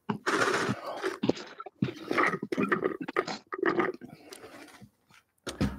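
A person drinking from a cup close to the microphone: irregular sips and swallowing gulps with small wet mouth clicks.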